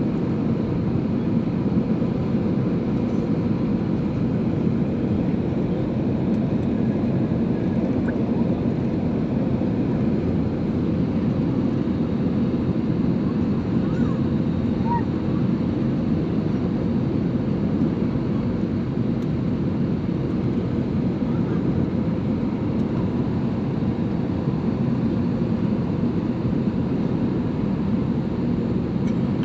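Steady low rumble of an Air Arabia airliner, even in level with no rise or fall, and a faint steady tone above it.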